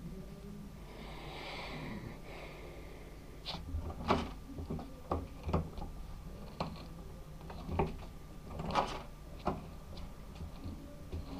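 A brief scraping rustle, then a run of irregular light knocks, metal on wood, as a new wooden handle is worked into a small hammer head held in a bench vise.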